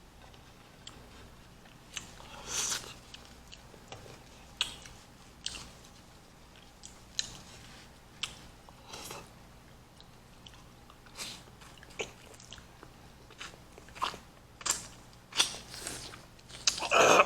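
Close-up mouth sounds of people biting and chewing kiwi fruit: irregular wet smacks and squelches with quiet gaps between them, and a louder burst near the end.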